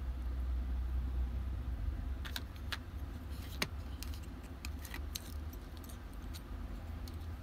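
Small metal parts and tools clinking and clicking as they are handled, a scatter of sharp ticks over a few seconds, over a steady low hum.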